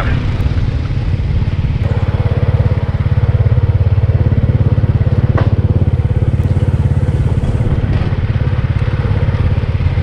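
Small motorcycle engine running at a steady pace with an even low pulsing while ridden along a dirt road.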